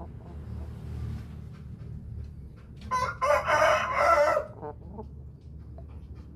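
A rooster crows once, a single call of about a second and a half a little after the middle.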